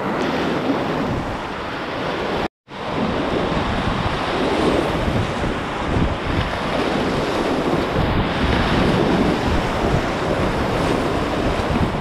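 Whitewater rapids rushing and splashing steadily around a kayak, heard close from the boat, with wind buffeting the microphone. The sound drops out completely for a split second about two and a half seconds in.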